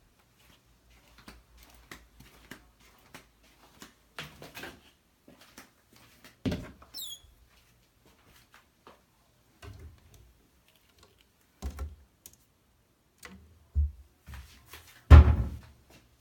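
Scattered light clicks, knocks and thumps in a small room, with a brief high squeak about seven seconds in and the loudest thump near the end.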